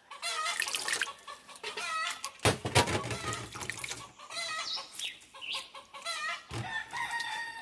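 Chickens clucking repeatedly in short calls, with a couple of sharp knocks about two and a half seconds in.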